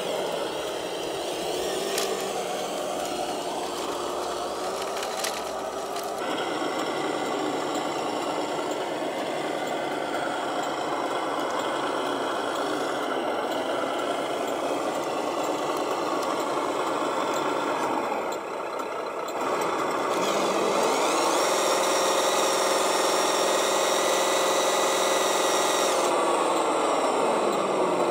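Radio-controlled model truck's electric motor and gearbox whining and buzzing as it pushes its heavy load through mud, the pitch stepping up and holding steady, then falling away near the end as it slows. A couple of sharp clicks sound in the first few seconds.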